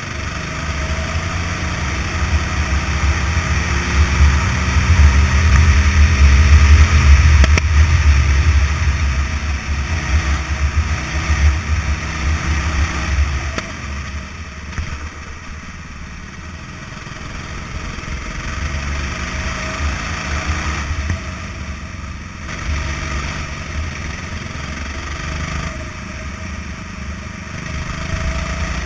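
Go-kart engine, heard from the driver's helmet camera. It revs up through the first dozen seconds, loudest about a quarter of the way in, then falls away about halfway through and picks up again several times as the kart lifts off and accelerates around the track.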